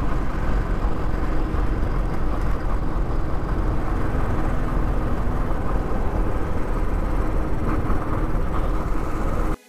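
Motorcycle ridden at a steady speed: its engine running under a steady rush of wind on the rider's camera microphone. The sound cuts off suddenly at the very end.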